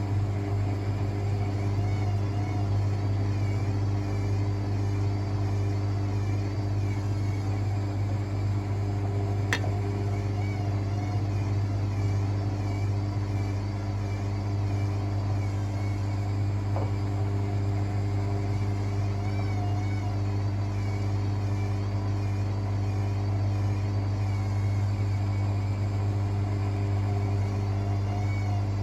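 Hotpoint WML540 washing machine running its Fast Wash 60° cycle: a steady motor hum with a faint whine that wavers in a repeating pattern, and a single click about ten seconds in.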